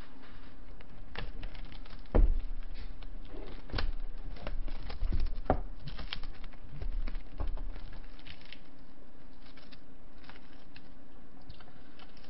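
Plastic cling wrap being peeled and crinkled off takeout dishes, with scattered rustling and clicks and several knocks of bowls and plates on the table, the sharpest about two seconds in.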